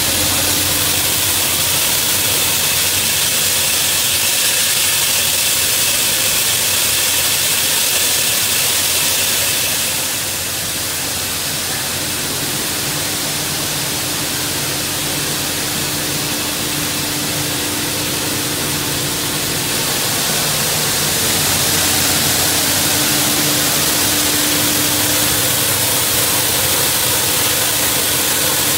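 Plastic waste washing line machinery running: a steady din of motors with a strong hiss and a steady hum. It drops a little in level about ten seconds in and comes back up about ten seconds later.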